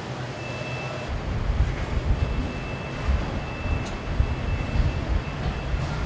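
Low, uneven mechanical rumble that grows louder about a second in, with a thin high steady tone sounding on and off above it.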